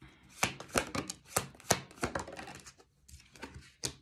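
A deck of tarot cards being shuffled by hand, a quick irregular run of sharp clicks and slaps, then a card laid down on the table near the end.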